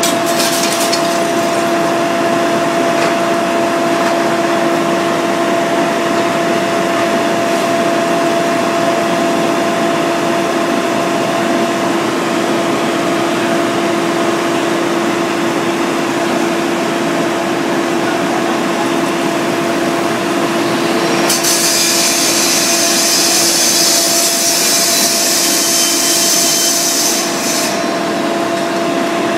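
Steady mechanical drone of firefighting equipment running, with a constant hum throughout. A loud high hiss comes in about three quarters of the way through and lasts some six seconds.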